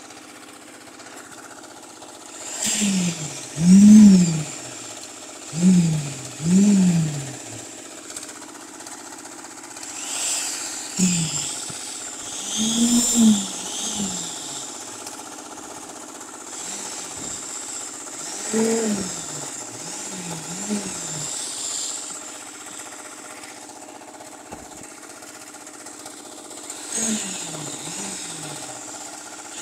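Motor of a handheld concrete poker vibrator running while the poker is worked into freshly poured concrete in a wall form. Its pitch swells up and falls back again and again in short surges, over a steady hum.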